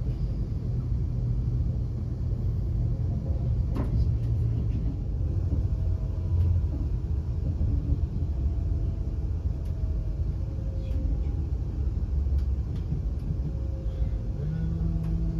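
Inside the carriage of a Class 350 Desiro electric multiple unit on the move: a steady low rumble from the train running, with faint whines that fall slowly in pitch. There is a single click about four seconds in, and a steady low hum starts near the end.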